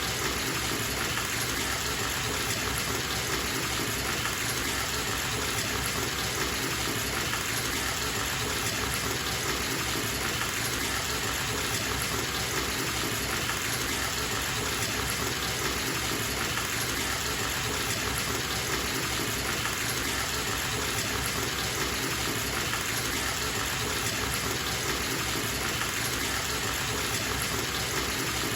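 Bathtub tap running at full flow, the stream gushing steadily into the filling tub.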